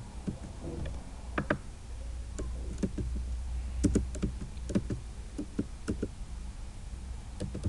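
Computer keyboard keys tapped in short scattered strokes, with a low steady hum underneath.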